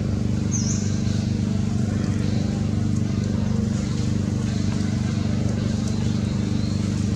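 A steady low mechanical hum, even and unchanging, with one brief high chirp about half a second in.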